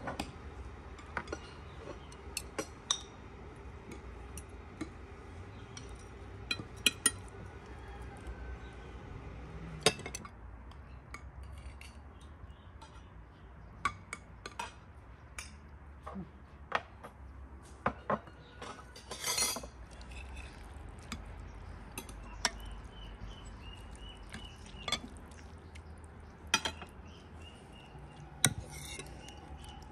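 Metal serving cutlery clinking and tapping against porcelain plates and a serving platter as food is served, in irregular sharp clinks.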